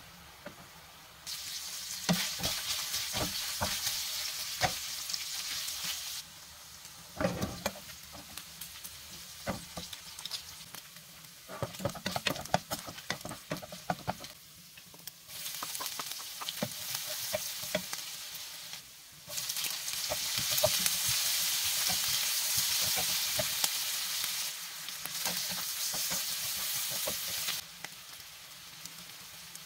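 Strips of meat sizzling in hot oil in a nonstick frying pan, stirred with a wooden spatula. The sizzle comes in stretches that start and stop abruptly, and a run of spatula scrapes and clicks against the pan falls in the middle.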